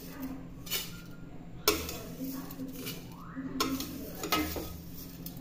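A steel ladle scrapes and clinks against a stainless-steel kadhai as roasted vermicelli is stirred and scooped out onto a steel plate. There are about four sharp metal knocks, the loudest about a second and a half in.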